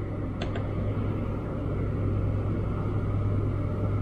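Steady hum and whir of a small electric space heater and a Bluetti EB70 portable power station running under load, the heater drawing a little over 300 watts from the inverter. A brief click about half a second in.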